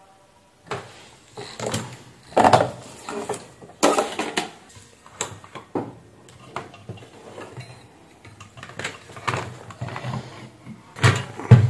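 Workbench handling noise: irregular knocks, clicks and clatter as multimeter test leads are put down and an inverter welder's circuit board on its metal mounting frame is picked up and moved, with the loudest knocks near the end.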